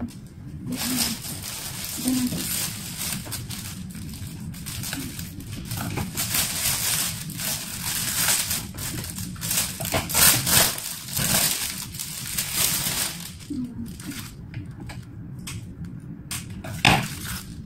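Clear plastic flower wrapping crinkling and rustling as it is handled and pulled open, in an irregular crackle that grows louder about ten seconds in and again near the end.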